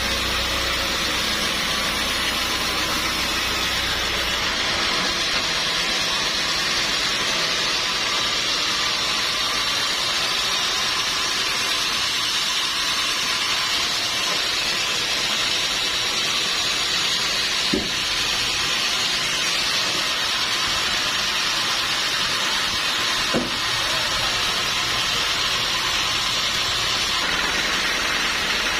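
Sawmill machinery running with a steady hiss. A low rumble drops away about four seconds in, and two brief knocks come later.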